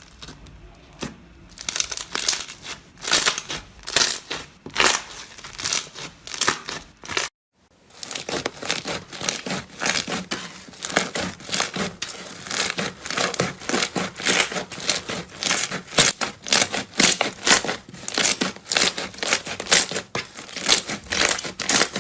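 Slime being pressed, squeezed and pulled by hand, crackling and popping in repeated bursts. There is a brief break about seven seconds in, after which the crackling comes faster and denser.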